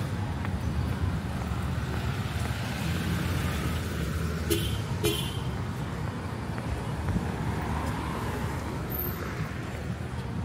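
Road traffic going by with a steady engine rumble. About halfway through, a vehicle horn gives two short toots.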